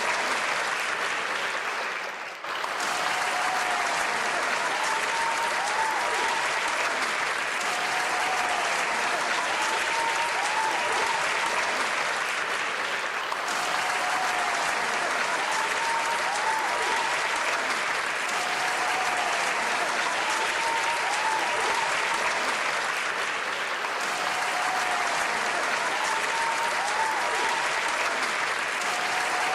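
Audience applauding steadily, a dense continuous clapping with a brief dip about two seconds in.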